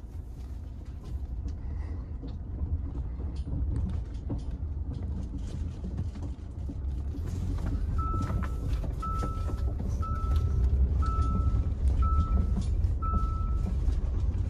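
Low engine and road rumble inside a moving Hyundai car, growing louder as the car picks up speed. About halfway in, the car's warning chime sounds six short, evenly spaced beeps, about one a second.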